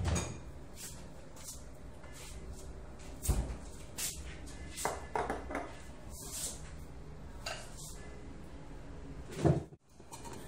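Plastic spice containers and jars being handled and set down on a stone kitchen counter: a string of separate knocks and clatters, with sharp ones at the start, about three seconds in, and near the end.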